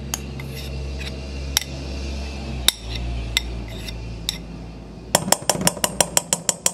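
Metal spoon clinking and scraping against ceramic and stainless steel bowls while scooping out sticky solid coconut oil. A few scattered clinks are followed, about five seconds in, by a quick run of taps, roughly eight a second, over a low steady hum.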